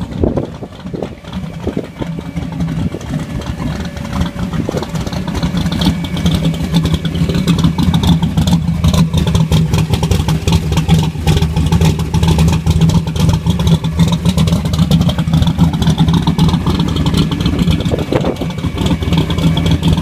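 A boosted drag car's engine idling with a rough, uneven rumble as the car creeps forward at low speed, growing louder over the first several seconds as it comes close and then holding steady, without a hard rev.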